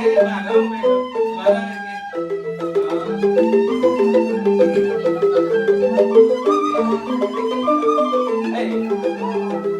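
Rindik, Balinese bamboo xylophones, playing fast interlocking struck-note patterns, with a higher melody line gliding above them. The lower notes drop out briefly about two seconds in.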